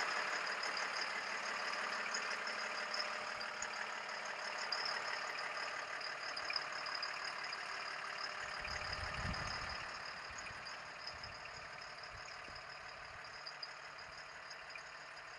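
Caterpillar 3116 six-cylinder diesel of an M1079 LMTV truck idling with a steady clatter and a high whine, growing fainter. A low thump about nine seconds in.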